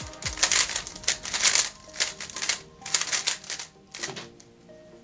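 Cosmic GAN 356 XS magnetic 3x3 speed cube being turned fast during a solve: a quick run of plastic clacks that thins out near the end. Soft background music plays underneath.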